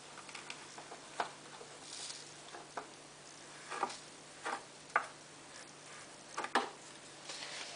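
About half a dozen irregular light clicks and knocks from hands working at a washing machine, the loudest about five seconds in and a quick pair near the end.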